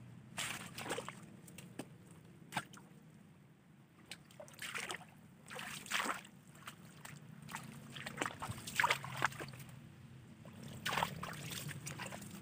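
Water sloshing and splashing in a string of irregular short bursts, as of someone wading through shallow water, over a low steady rumble.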